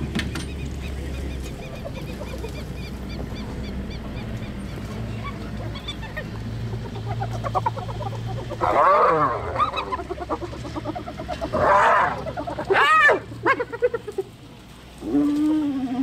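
Spotted hyenas calling at a carcass: loud, wavering, squealing cries begin about halfway through and come in several bouts. A low steady hum runs under the first half. The calls come from lower-ranking hyenas getting too close to higher-ranking ones as they squabble over the food.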